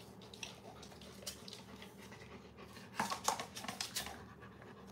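A dog panting, with a few light clicks and knocks; the loudest come about three seconds in.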